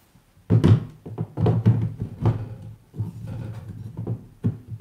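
A metal bottomless portafilter, made for a DeLonghi Dedica, knocking and scraping against the group head of a DeLonghi La Specialista Arte as it is pushed up and twisted. The knocks come in a quick irregular run starting about half a second in. It will not lock in because its tabs don't match the machine's smaller ones.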